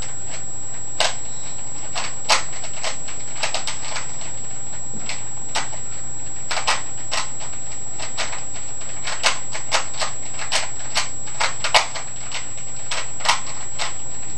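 Plastic Rubik's Cube being turned by hand in the middle of a solve: irregular clicks and clacks of the layers, sometimes several in quick succession.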